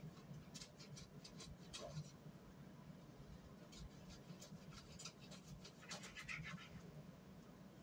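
Near silence with faint scratching and light clicks from hands working at a kitchen counter. They come in two short clusters, one early and one from about four to six and a half seconds in.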